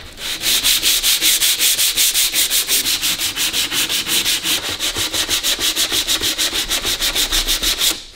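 Sandpaper rubbed by hand over bare sheet metal on a car bonnet in quick, even back-and-forth strokes, giving the filed and reshaped edge a final rub-over. The strokes stop shortly before the end.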